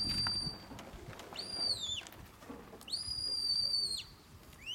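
Sheepdog handler's whistle giving commands to a working dog: a held high note, then a shorter note that rises and drops off at its end, then another long held note, and a quick upward note at the very end.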